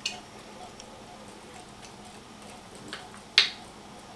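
Sharp plastic clicks from a small 3D-printed spring snowball gun being worked by hand: one at the start, a couple of faint ones, and the loudest single click about three and a half seconds in.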